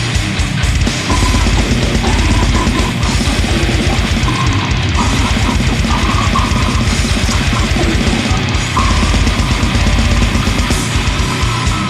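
Brutal death metal song: heavily distorted guitars over very fast, pounding drums.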